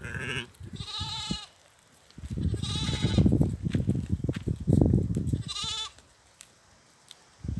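Goats bleating three times, about a second, three seconds and nearly six seconds in, each call a short wavering bleat, over a low rumbling noise.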